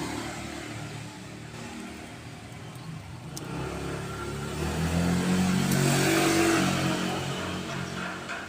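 A motor vehicle's engine passing by: it grows louder to a peak about five to seven seconds in, then fades away.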